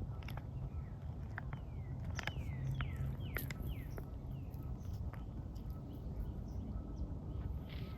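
A wild bird calling: a run of short whistled notes that each slide downward, several in quick succession, over a steady low rumble.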